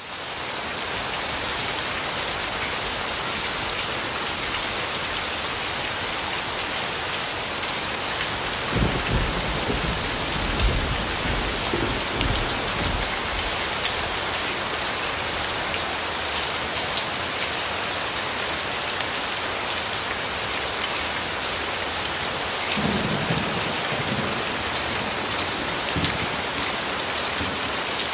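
Steady rain falling, an even hiss, with low rumbles of thunder swelling about nine seconds in and again about 23 seconds in.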